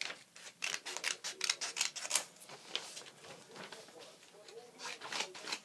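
Scissors cutting through a sheet of paper: a run of quick, crisp snips, easing off midway, then more snips near the end.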